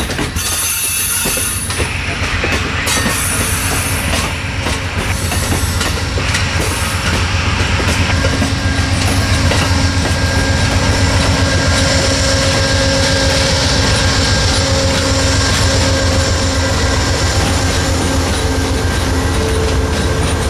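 Amtrak passenger train rolling past on the rails: steady rumble with wheels clicking over rail joints. The sound grows louder toward the end as the diesel locomotives, GE Genesis P42DCs, come by.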